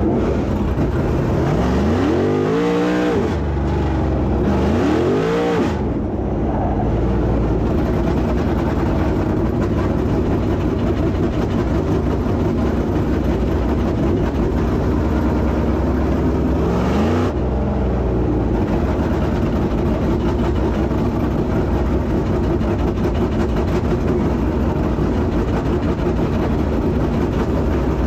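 Dirt late model race car engines running hard on the track, with a continuous engine drone. Engine pitch climbs steeply as cars accelerate, twice in the first few seconds and again about two-thirds of the way through.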